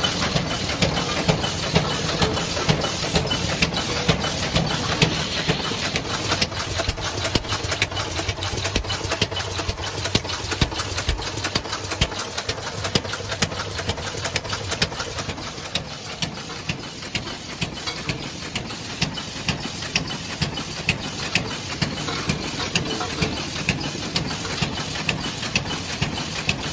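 Child-proof cap assembly and wadding-pressing machine running: a steady mechanical hum and hiss with sharp clacks repeating at an even rhythm.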